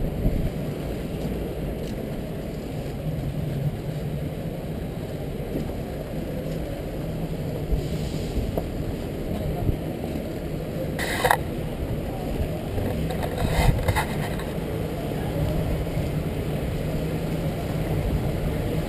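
Inline skate wheels rolling over a paved sidewalk: a steady low rumble, with a couple of short sharp rattles, one about eleven seconds in and another around fourteen seconds.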